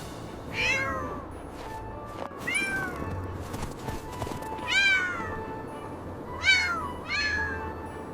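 A series of about five high kitten meows, each falling in pitch, over soft background music.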